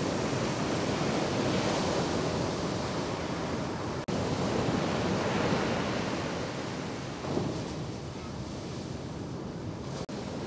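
Ocean shore break: waves breaking and washing in, a steady rush of surf with wind buffeting the microphone. The sound drops out for an instant about four seconds in and again near the end.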